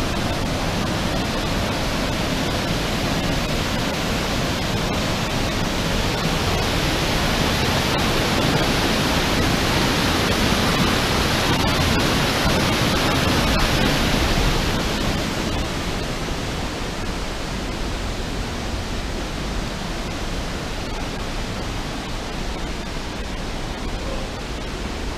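Steady rush of a waterfall cascading through a rock gorge, loudest about halfway through and then slowly fading.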